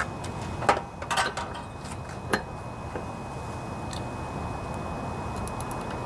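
A few sharp metallic clicks and clinks as a torque wrench and socket are handled and fitted onto a lawnmower engine's flywheel nut, most of them in the first couple of seconds, over a steady low background hum.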